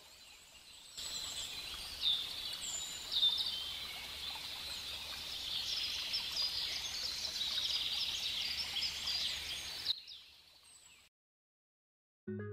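Outdoor chorus of small birds chirping and calling, many short high chirps and quick glides overlapping, over a faint low hum; it stops about ten seconds in. After a moment of silence, mallet-percussion music begins near the end.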